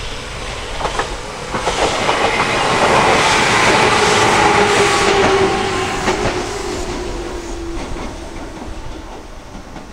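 Shizuoka Railway 1000 series electric train passing close by: it swells to its loudest three to five seconds in, with wheels clacking over rail joints and a whine that slides slightly down in pitch, then fades away.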